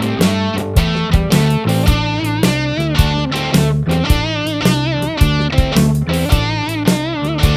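Intro music: a rock track led by a distorted electric guitar, with bass and a steady drum beat.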